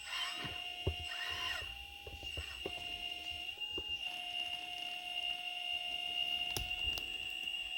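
Radio-controlled hydraulic scale construction machine working: a steady high whine from its electric motors and hydraulic pump, a lower motor tone that shifts slightly in pitch, short squeals twice early on, and scattered clicks.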